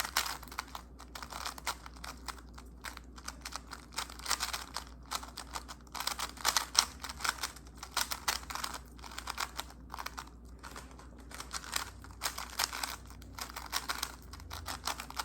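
Moyu Weilong WRM Maglev speedcube being turned rapidly and continuously: a dense, irregular run of plastic clicks and clacks. The cube is being broken in after fresh drops of lubricant.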